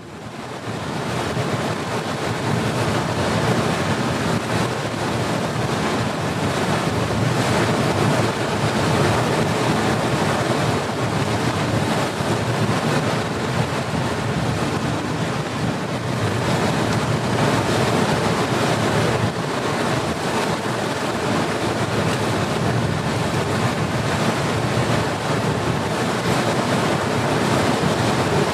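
Steady wind on the microphone over the wash of sea water, heard from the deck of a moving ferry.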